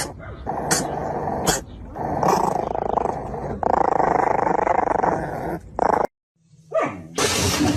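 A dog growling in long rough stretches with short breaks, cut off abruptly about six seconds in.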